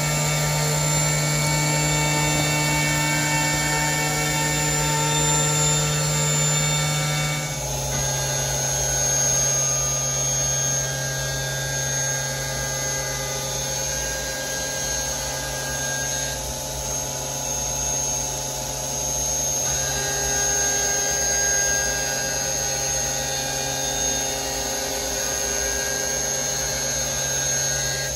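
Syil X7 CNC mill's spindle running, with an end mill cutting a round metal workpiece: a steady machine whine made of several held tones over a low hum. About seven seconds in, the whole set of tones steps down a little in pitch and then holds steady again.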